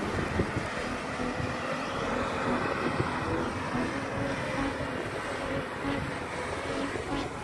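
Engine of a Mitsubishi Challenger 4WD running under load as it drives up loose sand dunes, heard under a steady noisy rush.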